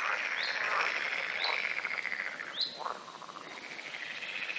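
Wetland nature sounds: a steady, fast-pulsing animal chorus, with short rising chirps about once a second.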